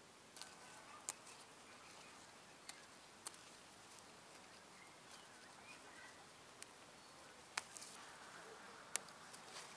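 Quiet rural outdoor ambience with scattered sharp clicks and taps, the loudest near the end, and a few faint bird chirps.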